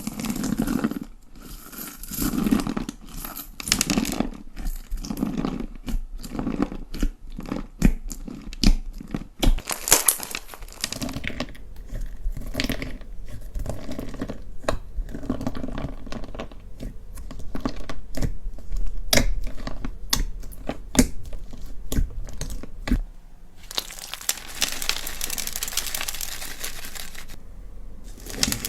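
Slime being squeezed and pressed by hand: squelches about every second and a half at first, with crackling pops. Then a long run of small sharp crackles, and a few seconds of dense crinkling near the end.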